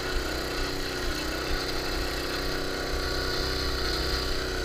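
Tecumseh 5-horsepower single-cylinder engine of a converted Huskee snowblower running steadily as it drives the machine along with about 250 pounds of cement in its bucket.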